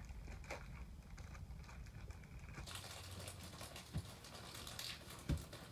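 Small plastic Num Noms toy being handled and fiddled with in the hands: faint scattered clicks and light rustling, with two soft knocks in the last two seconds.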